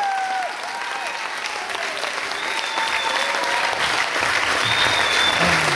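Audience applauding in a gym hall, growing slowly louder toward the end.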